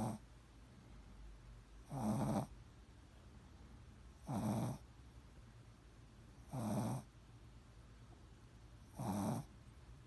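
A sleeping pet dog snoring: a short snore about every two and a half seconds, four in all, each about half a second long.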